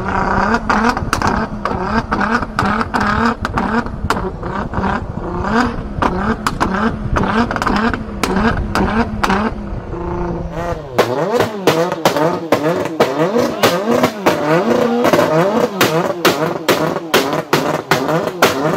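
Tuned car engine revving in quick blips, with repeated sharp exhaust pops, crackles and backfires. About eleven seconds in the sound changes abruptly: the low rumble drops out, the revs go higher and the pops come thicker and faster.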